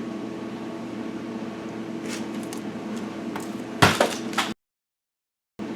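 A steady electrical hum, with a few light clicks and then a louder clatter of something being handled about four seconds in, after which the sound cuts off abruptly for about a second.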